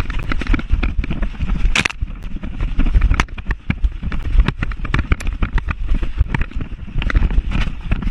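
A Labrador running hard with a camera on its back: a fast, irregular stream of thumps and knocks from its footfalls and the jolting mount, over a heavy low rumble.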